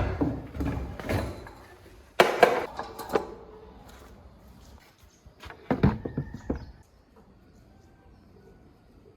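A series of sharp knocks and clatters of hard objects, loudest about two seconds in, with a short ring after some of them, then a much quieter stretch from about seven seconds in.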